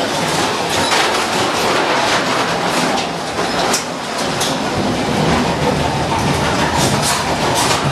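Ghost train ride car rattling along its track, with a steady rumble and irregular sharp knocks and clatters.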